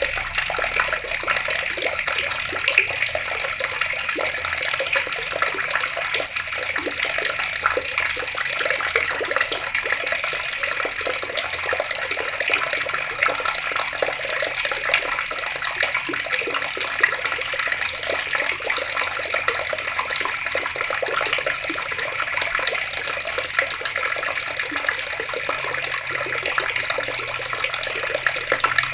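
Water running steadily from an open tap, a continuous splashing rush.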